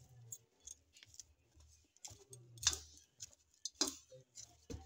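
Hands kneading maida dough on a steel plate: soft low thuds of pressing, with a handful of sharp clicks from the bangles on the kneading wrist knocking together.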